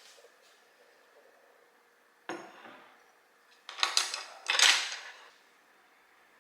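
Dishes and cutlery being handled: a single ringing clink about two seconds in, then a run of louder clattering knocks and scrapes near the middle.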